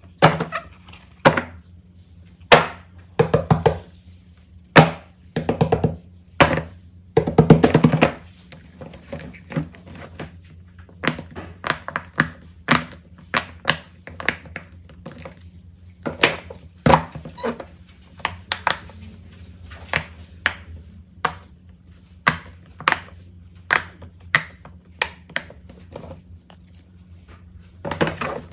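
Silicone pop-it fidget toys being set down, slid and handled on a table: a string of soft thuds and slaps, with quick runs of pops as fingers press the bubbles, the densest runs about three and seven seconds in.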